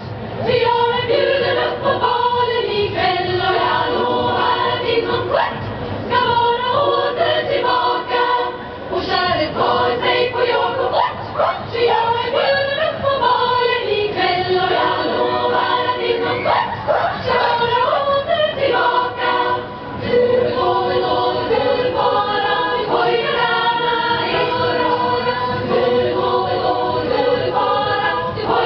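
A women's choir singing a song in harmony, with long held notes.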